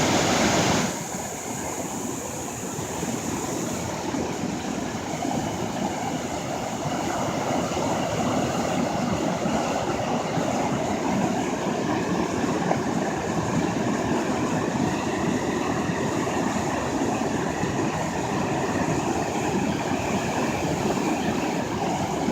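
Steady rush of water pouring over a river dam, a continuous roar with no distinct pitch, louder and brighter for about the first second.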